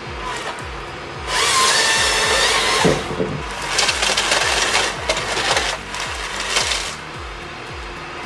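A powered saw cutting through wood in two loud passes, one about a second in and a longer one from about four to seven seconds, over background music with a deep bass beat about twice a second.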